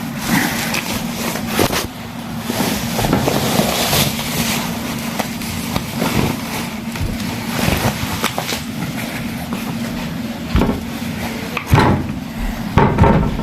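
Rustling, knocks and clicks of an amplifier and its packaging being handled, scattered over a steady background hum.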